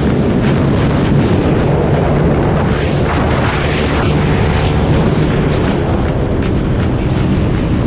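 Motorcycle engine running steadily while riding, under the rush of wind over the microphone, with many small clicks in the noise.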